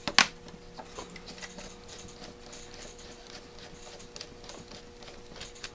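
A sharp click just after the start, then faint scattered ticks and light knocks of small screws and the metal Rochester B carburetor body being handled during teardown.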